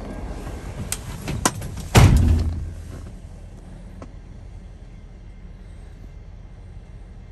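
A few sharp clicks, then a heavy thump about two seconds in that dies away within a second, over the low steady rumble of a stopped diesel locomotive idling.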